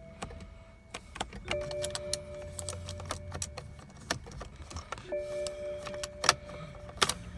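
A steady electronic tone from the no-crank 2010 BMW 535i sounds, stops and restarts in stretches of a few seconds, with scattered sharp clicks and rattles throughout.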